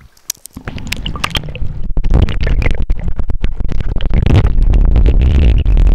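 River current rushing against a camera held underwater, heard as a muffled rumble that starts faint and turns loud about two seconds in, with scattered clicks and knocks.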